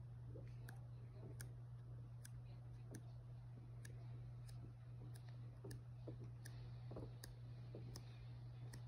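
A paperback coloring book being leafed through by hand: faint soft page rustles, with light sharp clicks a little more often than once a second over a steady low hum.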